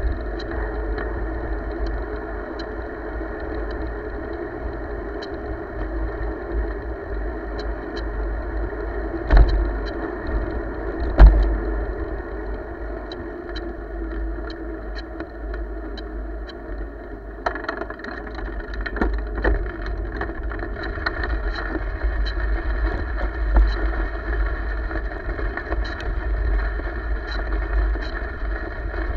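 Bicycle rolling along a trail: steady tyre rumble and wind buffeting the microphone, with small rattles and two sharp knocks from bumps about a third of the way in. The rolling noise turns rougher and busier past the halfway point as the surface changes from asphalt to gravel.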